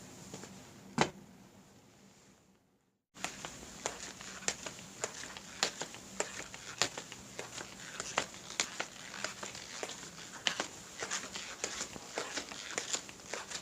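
Irregular sharp clicks and taps over a faint steady hiss. The first sound fades to silence about three seconds in, and a second series of clicks starts suddenly right after.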